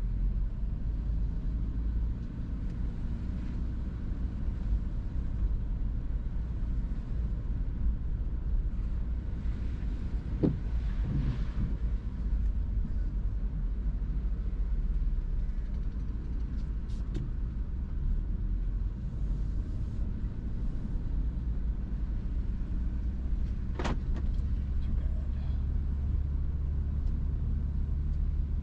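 Steady low rumble of a car's engine and road noise heard from inside the cabin while driving, with a couple of brief clicks, one about ten seconds in and one about twenty-four seconds in.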